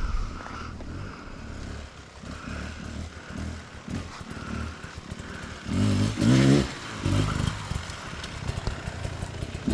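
Enduro dirt bike engines: a low steady idle, then a dirt bike revving in short bursts from about six seconds in, its pitch rising and falling.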